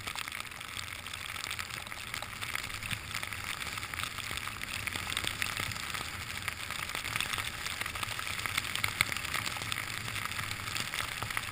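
Steady hissing of a rider gliding through fresh powder snow, flecked with small crackles, as heard from a helmet-mounted camera.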